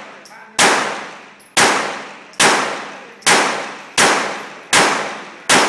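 Springfield XD(M) semi-automatic pistol fired seven times in steady succession, about one shot every 0.8 s, each report trailing off in a ringing echo.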